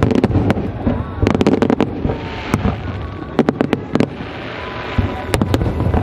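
Aerial fireworks display: many sharp shell bursts popping in rapid clusters, with a hissing crackle between volleys.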